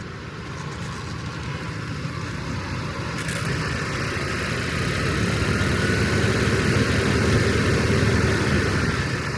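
Tractor engine running steadily, growing louder toward a peak near the end and then easing off slightly.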